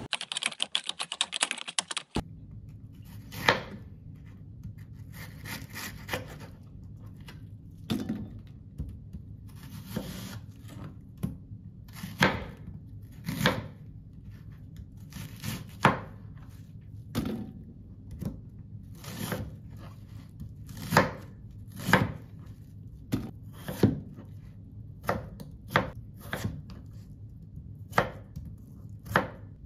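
A knife chopping on a cutting board in slow, separate strokes, about one a second, over a steady low hum. It opens with about two seconds of a crackly rustle before the chopping starts.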